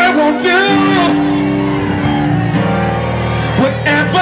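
Live band music at a concert: a man sings into a microphone over keyboard and electric bass. The voice drops out for a stretch of held chords in the middle and comes back near the end.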